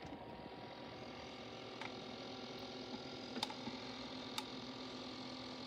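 Steady mechanical hum from running disco light effects, which include a motorised kaleidoscope projector, with a few faint clicks as a small plastic laser projector is handled and turned over.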